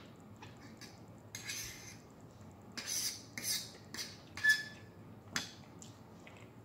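A metal fork scraping and clinking against a dinner plate in several short strokes as food is gathered, with one sharp ringing clink about halfway through, the loudest sound.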